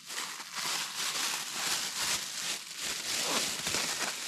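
Plastic bag crinkling and rustling in uneven bursts as it is handled and opened, most likely the bag of sticky rice.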